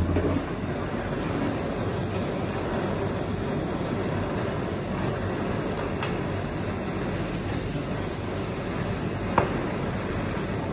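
Gas ring burner running with a steady, even rushing noise from its open flame. One sharp knock, likely a knife on the cutting board, about nine seconds in.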